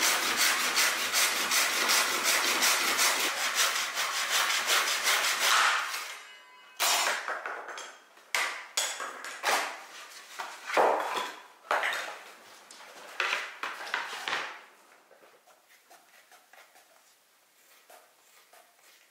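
Japanese pull saw cutting through a hardwood board in a quick, continuous run of strokes for about six seconds. Then comes a string of separate wooden knocks and rubs as the board and saw are handled on the bench, and after that only faint sounds for the last few seconds.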